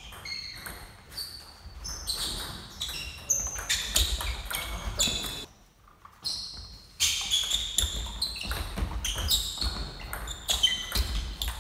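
Table tennis ball clicking off bats and bouncing on the table during doubles rallies, with short high squeaks from sports shoes on the hall floor, in an echoing sports hall. There is a brief lull about halfway through.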